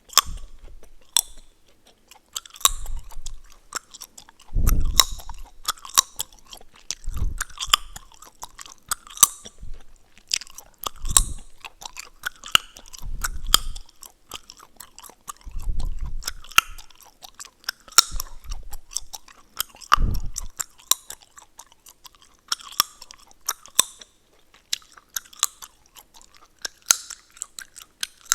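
Close-miked gum chewing: wet mouth sounds with irregular sharp cracks and pops of the gum, and a soft low thud of each chew every couple of seconds in the first two-thirds.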